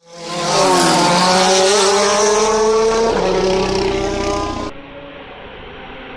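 Propeller aerobatic plane's piston engine at full power as it pulls up into a steep climb, its pitch sliding down and then back up. About three-quarters of the way through the sound cuts off abruptly and is replaced by a quieter, duller engine drone.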